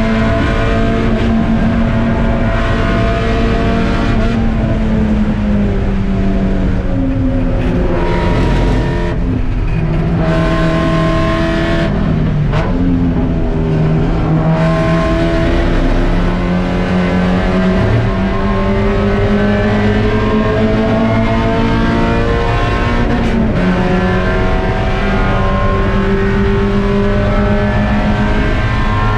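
Spec Miata's Mazda four-cylinder engine under race load, its note climbing through the revs and falling back at gear changes and braking, with sharp drops about 12 and 23 seconds in.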